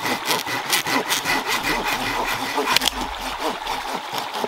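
Hand saw cutting through a log with quick, rhythmic back-and-forth strokes, the teeth rasping in the wood.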